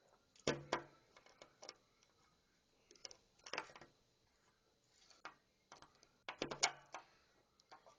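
A multitool being handled: a scattering of short, sharp metal clicks and knocks in uneven clusters, as its folding tools are moved and snapped into place.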